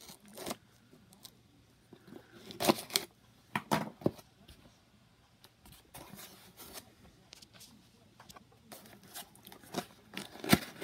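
A taped white cardboard mailer box being opened by hand: a few short sharp rips and scrapes of tape and cardboard about three seconds in and again near the end, with quieter handling between.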